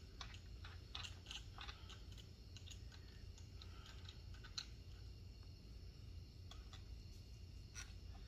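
Faint, scattered small clicks and ticks of metal and plastic parts as a 2x12-gram CO2 charger is handled and twisted onto a gun, over a low steady hum.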